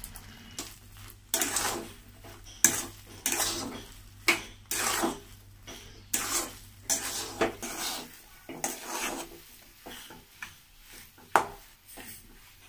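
A steel spatula scraping and stirring thick semolina upma against the inside of a metal kadai, in repeated irregular strokes about once a second. There is a sharper clank of metal on metal near the end.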